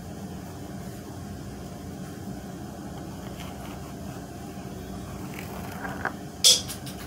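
Steady low background hum, with a few light knocks from the pencil and hands on the tabletop while she traces; the sharpest knock comes about six and a half seconds in.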